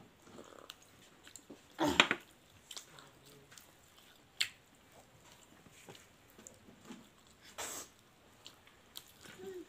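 Mouth eating sounds from someone eating fried bora fritters: scattered faint crunches and clicks of chewing. A short, loud vocal sound about two seconds in and a brief breathy burst near the end.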